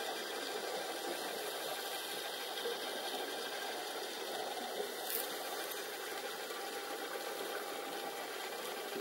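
Steady underwater noise as picked up by a camera in its underwater housing: a constant hiss with a faint mechanical whirr, and one short click about five seconds in.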